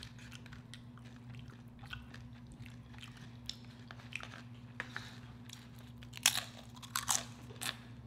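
Close-miked biting and crunching of a sauce-dipped tortilla chip, with small mouth clicks, then a run of loud crisp crunches from about six seconds in. A steady low hum lies underneath.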